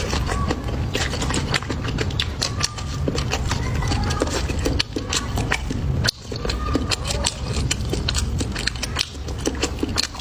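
Close-miked chewing of food, with a dense run of crisp crunches and wet mouth clicks.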